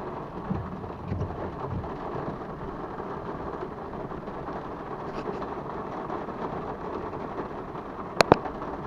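Steady heavy rain on a vehicle during a thunderstorm, with low thunder rumbling in the first two seconds. Near the end, two sharp clicks close together are the loudest sound.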